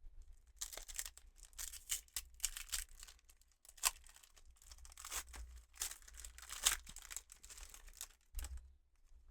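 Foil wrapper of a Pokémon trading card booster pack being torn open and crinkled: a run of irregular crackling rips that stops about a second before the end.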